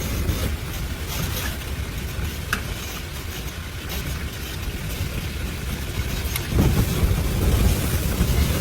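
Blizzard wind rumbling and buffeting on the microphone, with a stronger gust about six and a half seconds in.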